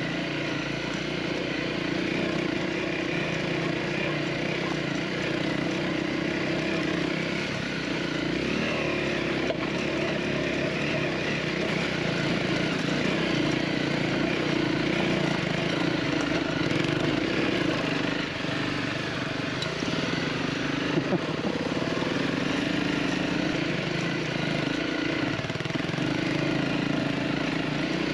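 Honda CRF250L single-cylinder four-stroke engine running at low revs, heard from on board the bike. Its pitch wavers up and down with the throttle.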